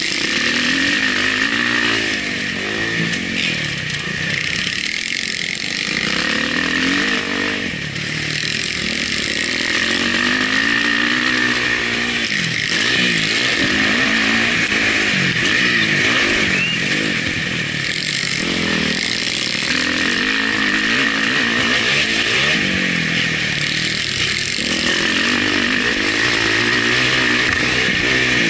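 Motocross dirt bike engine heard close up from onboard, revving up and dropping back every few seconds as it is ridden hard through the gears and corners, over a steady rush of wind noise.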